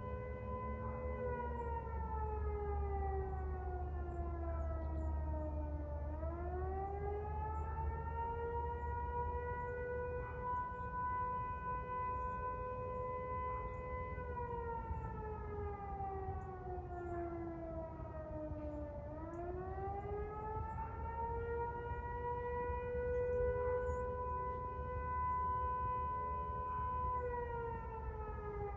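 Eclipse 8 fire siren sounding a slow wail: the tone holds high, slides down over about five seconds, then climbs back and holds again, twice. It is the alert calling firefighters to an emergency call.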